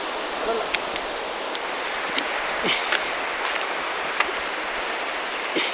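Steady rush of flowing stream water, with a few faint clicks and knocks over it.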